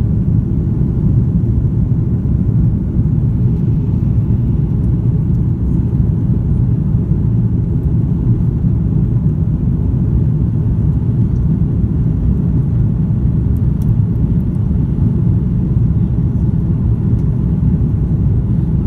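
Steady deep rumble of an Airbus A330-300's cabin in flight: the noise of its Rolls-Royce Trent 700 engines and the air rushing past the fuselage, heard from a window seat.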